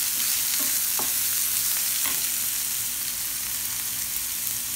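Chopped onions sizzling steadily in hot oil in a nonstick frying pan while a wooden spatula stirs them, with a few light knocks of the spatula against the pan.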